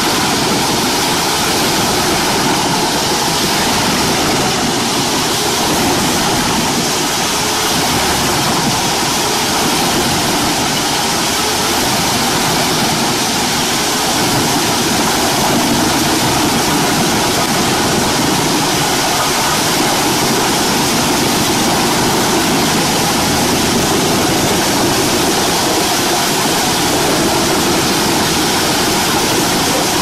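Truck-mounted drum wood chipper running under load, chipping logs and branches: a loud, steady rushing noise with an engine underneath.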